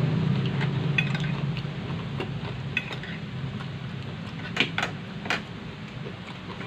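Metal cutlery clinking against a glass dish and plates in a few short, sharp clicks, the loudest three close together about four and a half to five and a half seconds in, over a steady low hum.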